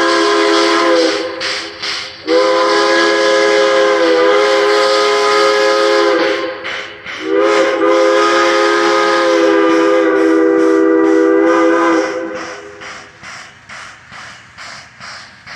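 A three-chime steam whistle from the Central Railroad of New Jersey, mounted on Baldwin No. 26 steam locomotive, sounding a chord in long blasts. The first blast ends about a second in, and two more long blasts follow. After the last blast the locomotive's exhaust chuffs steadily, about two beats a second.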